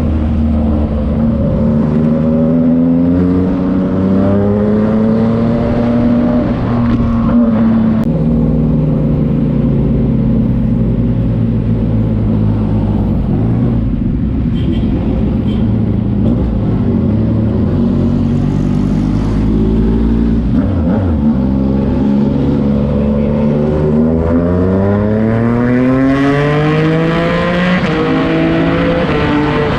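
Yamaha MT-09's three-cylinder engine through a Racefit Slash aftermarket exhaust, its revs climbing, holding and easing off in long smooth sweeps, with a long climb about two-thirds of the way in that drops back near the end.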